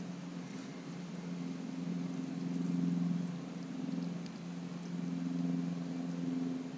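Steady low drone of a running motor, swelling and fading in loudness, with a few faint ticks over it.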